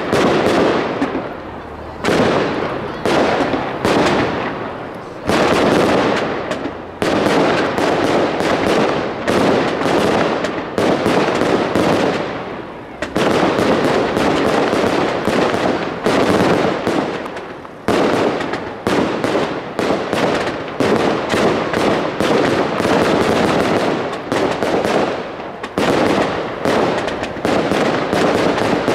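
Consumer fireworks going off in a continuous barrage: a dense run of bangs and crackling, with fresh volleys every second or two.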